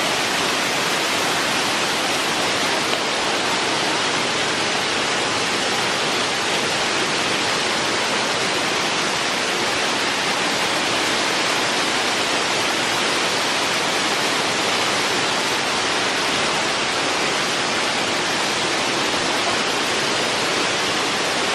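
Waterfall water falling and rushing, a steady unbroken noise.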